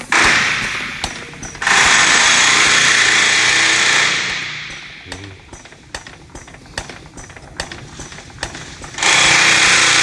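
Air-operated diaphragm pump running hard, pushing jet fuel through a hose into a container: a loud rushing hiss that comes in long surges, starting and stopping abruptly, over a fast run of clicks from the pump. Between the surges, from about four seconds in, the hiss dies down and the clicking is left.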